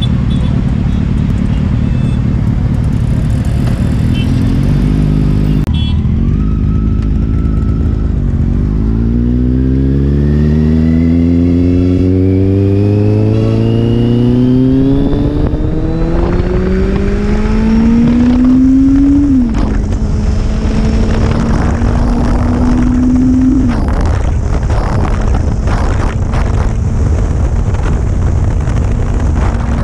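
Kawasaki Z800 inline-four engine accelerating hard. Its pitch climbs steadily for several seconds, drops suddenly at an upshift, climbs again and drops at a second upshift, then holds steady at cruising speed with wind buffeting the microphone. Before this, a steady engine note plays for the first few seconds and ends at a cut.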